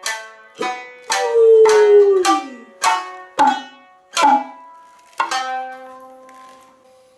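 Nagauta music: sparse, separate plucked shamisen notes with sharp attacks, about eight of them, each ringing briefly. The last note, a little after five seconds in, rings on and fades away.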